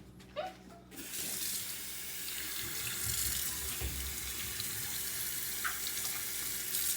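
Kitchen tap turned on about a second in and running steadily into the sink as the raw chicken is rinsed.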